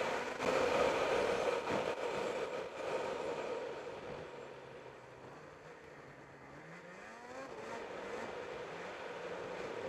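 Snowmobile engine running under throttle on a snowy trail. It eases off about four seconds in, then revs back up with rising pitch near the end.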